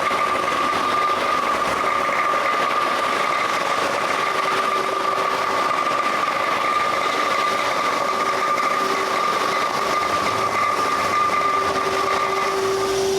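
Husqvarna HTC 400 three-phase single-head floor grinder running with diamond segments on the floor, a steady high whine that cuts out near the end. A dust-extraction vacuum runs alongside it.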